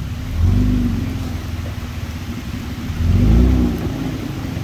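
Toyota Land Cruiser's engine running at low revs as the SUV crawls over rocks and mud, revving up and easing off twice: briefly about half a second in, and again about three seconds in.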